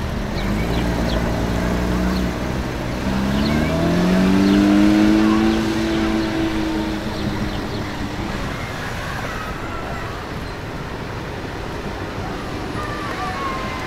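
A sports car's engine running at a low steady note, then rising in pitch as it accelerates about three seconds in, loudest around five seconds, and fading away as the car drives off. Steady street noise underneath.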